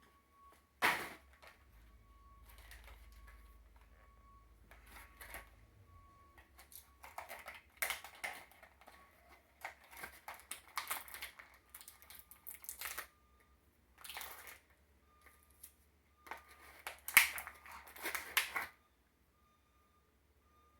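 Plastic action-figure packaging being handled and pulled open: irregular clusters of rustles and clicks with short pauses between, the loudest about three-quarters of the way through, stopping a couple of seconds before the end.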